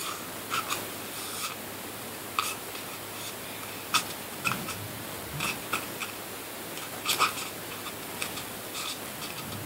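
Scissors snipping slits into a handmade small-pet toy: scattered, irregular short crisp snips and handling clicks over a steady background hiss.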